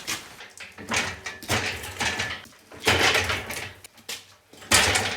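Irregular scuffs, knocks and rustles, about half a dozen over five seconds, with short quieter gaps between them.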